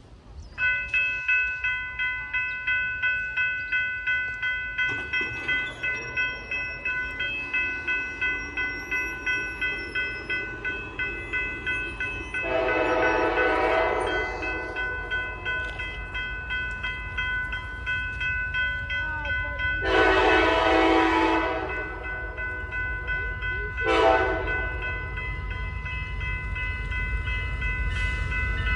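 Norfolk Southern freight locomotive's air horn sounding the grade-crossing signal: two long blasts and a short one. Under it a bell rings about twice a second from about half a second in, over the low rumble of the approaching train.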